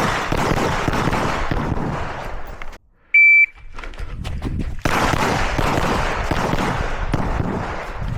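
A shot timer's start beep: one steady high tone, about a third of a second long. It comes between stretches of dense rushing noise that cut off abruptly just before it and start again abruptly about a second and a half after.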